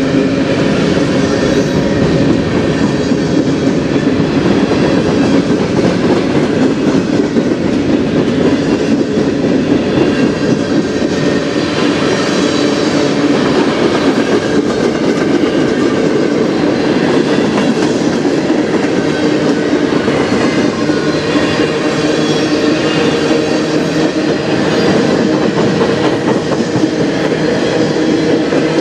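Freight train's covered hopper cars and tank cars rolling past close by: a steady, loud rumble and rattle of steel wheels on the rails, with faint steady ringing tones over it.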